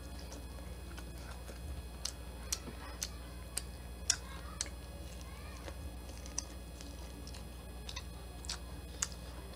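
Close-miked chewing of buttered corn on the cob: irregular sharp, wet mouth clicks and smacks, the loudest about four seconds in, over a low steady hum.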